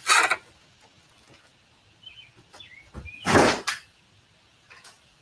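Cardboard and foam packaging rubbing and scraping in two short bursts: one at the start and a louder one about three seconds in.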